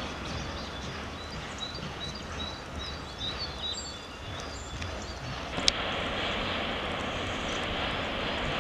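Outdoor background noise with small birds chirping during the first half. A little past halfway there is a sharp click, after which a louder, steady rushing noise carries on.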